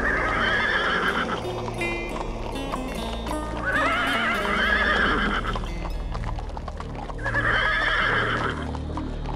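A horse whinnying three times, about every three and a half seconds, each a quavering call of a second or two, over low droning music, with some hoof clopping between the calls.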